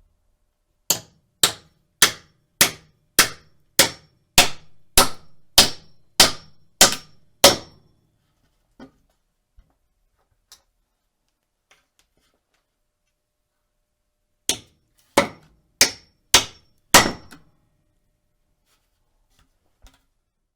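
Hammer driving a nail: a run of about twelve steady blows, one roughly every 0.6 seconds, each with a short metallic ring. A few light taps follow, then a second run of five blows.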